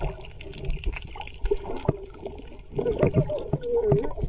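Water sloshing and splashing close to the microphone, with small irregular knocks and a low rumble. A muffled voice is heard briefly near the end.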